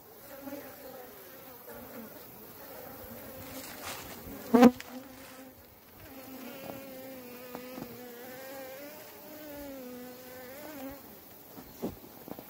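Honey bees buzzing close to the microphone: a wavering, pitched drone of wings in flight that fades and returns. A single sharp knock sounds about four and a half seconds in.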